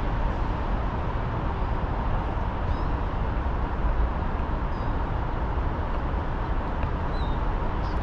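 Steady city ambience: a constant low rumble of distant traffic, with a few faint bird chirps about a third of the way in, halfway and near the end.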